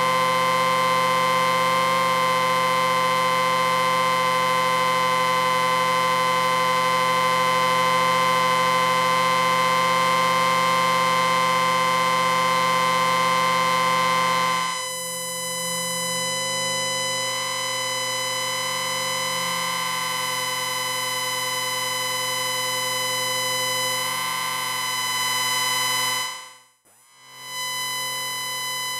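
Amplifier beeping: a steady electronic whine of many tones sounding together. About halfway through some of the tones drop out and it gets a little quieter, and near the end it cuts out for about a second before coming back.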